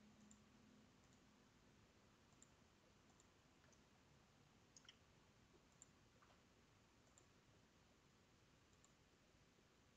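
Near silence: quiet room tone with a handful of faint, irregular computer-mouse clicks.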